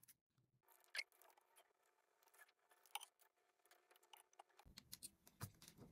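Near silence, with a few faint clicks and rustles: a paper sticker sheet being handled and a sticker peeled and pressed onto a laptop lid. A sharper click comes about a second in, and the small ticks grow more frequent near the end.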